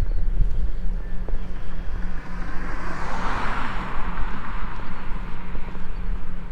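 Wind rumbling on the microphone, with a vehicle passing by: a broad rush that swells to a peak about three seconds in and then fades.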